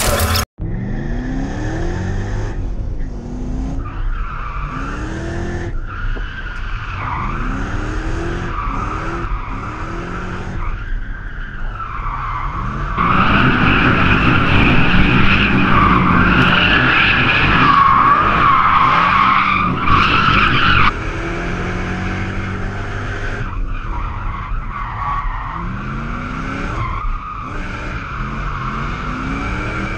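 BMW drift car's engine revving hard in repeated rising surges while its rear tyres squeal and skid through the corners; the run gets louder for several seconds in the middle.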